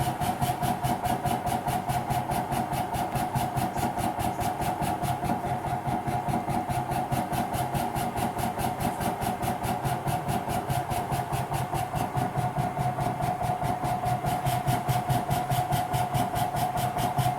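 Pegaso cough-assist machine running its percussion mode: a steady blower hum chopped into rapid, even pressure pulses, several a second. This is the oscillating airway-clearance therapy that loosens secretions for drainage.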